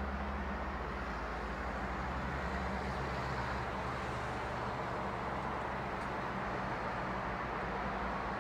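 Steady outdoor ambient noise: an even hiss with a low, steady hum beneath it.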